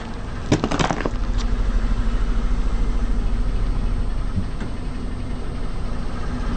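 A car engine running steadily at idle, with a few sharp crackles in the first second and a half.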